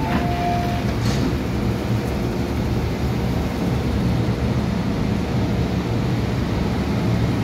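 The tail of an MTR M-Train's two-tone door chime in the first second as the doors open, then the steady low rumble and hum of the train standing at the platform, with a single click about a second in.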